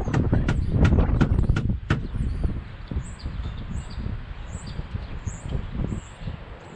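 Small birds chirping repeatedly over a low rumbling background, with a quick run of about six sharp knocks or taps in the first two seconds.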